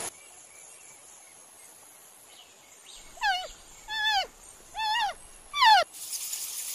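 An animal calling four times in a row, about one call a second: short pitched calls that each rise and then fall, the last the loudest. A steady hiss of outdoor ambience follows.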